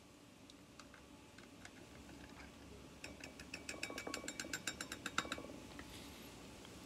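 A rapid run of crackling clicks, about nine or ten a second, lasting a couple of seconds from about three seconds in, as a foil pouch of wet cat food is squeezed and scraped out over a bowl. A few fainter clicks come before it.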